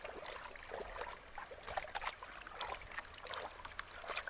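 Water sloshing and splashing in a hand-swirled gold pan as sand is washed off the concentrate to leave the gold, a run of small irregular splashes.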